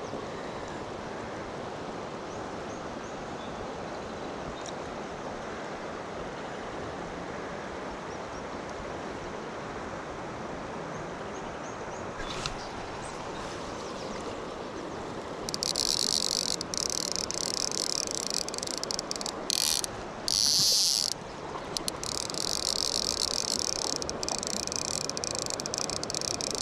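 River water running steadily. About halfway in, a fly reel's clicker starts buzzing loudly right at the microphone, in spurts that stop and start several times.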